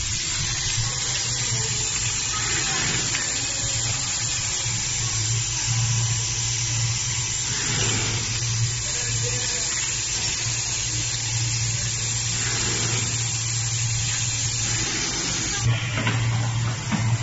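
Six-head weigher packing machine running: a steady low hum under a constant hiss, with a few soft rustles of plastic sachets being handled.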